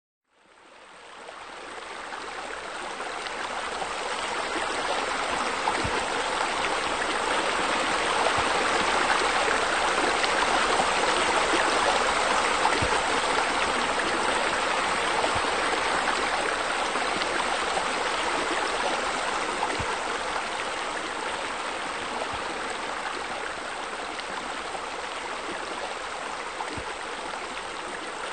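Steady rush of flowing water, like a stream or small waterfall, fading in from silence over the first few seconds and then holding even.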